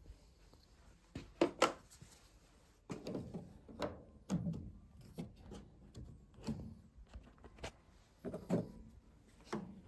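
PVC condensate drain pipe and fittings being handled and dry-fitted before gluing: irregular knocks, clicks and plastic rubbing.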